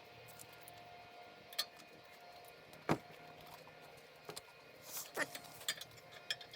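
Hands working sealing tape around a plastic HVAC heater box: scattered sharp clicks and taps, the loudest about three seconds in, and a brief cluster of rustling ticks near the end. A faint steady hum stops about two and a half seconds in.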